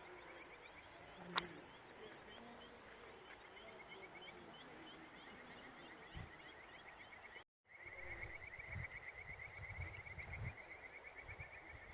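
Rapid, evenly repeated high chirps from a small animal calling, several a second, over a faint outdoor hiss. There is a single sharp click about a second and a half in. After a brief break past the middle, the chirping returns louder with a low rumble underneath.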